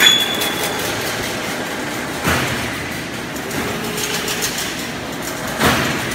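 Servo-driven chain link fence weaving machine running: a steady mechanical clatter with three louder clanks, at the start, a little over two seconds in and near the end.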